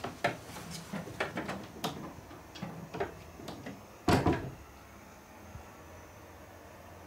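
A string of irregular knocks and clicks, the loudest a heavy double knock about four seconds in, then a faint steady hiss.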